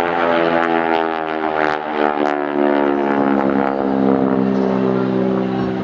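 North American SNJ/T-6 Texan's nine-cylinder Pratt & Whitney R-1340 radial engine and propeller pulling the plane up from a low pass into a vertical climb. A loud, steady drone with many overtones that eases off slightly near the end.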